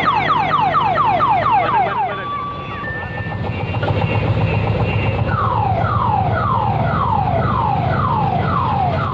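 Electronic multi-tone siren of an odong-odong mini train's sound-effect module, cycling through patterns. It begins with a rapid falling yelp of about five sweeps a second, switches to a couple of steady beeps, then a slower falling wail of about two sweeps a second, over a steady low hum.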